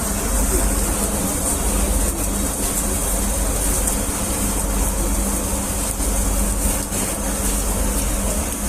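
A steady mechanical hum with hiss, holding a constant low drone and an even tone throughout.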